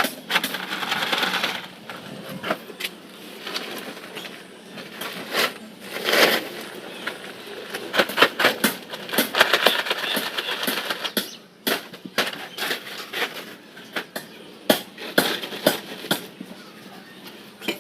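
Hand tools working cement mortar: irregular scraping with frequent sharp knocks and clinks.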